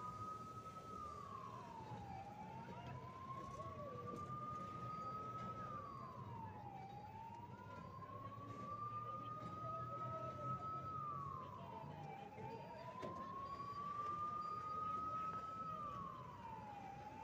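Emergency vehicle siren wailing in a slow cycle: each time it rises gradually for about four seconds, then drops quickly, repeating about every five seconds.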